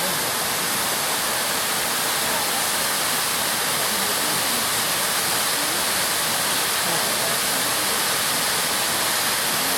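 Waterfall: the steady, even rush of water falling and splashing onto rock.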